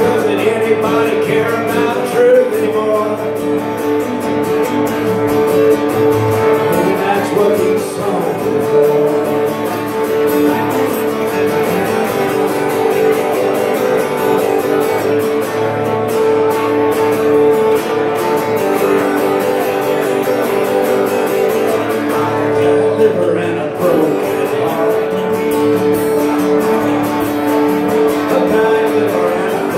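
Acoustic guitar strummed and picked in a country-style song, with a man singing at times.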